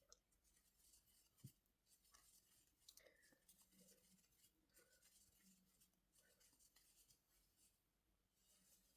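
Near silence with the faint scratchy rubbing and small clicks of a crochet hook working yarn through double crochet stitches.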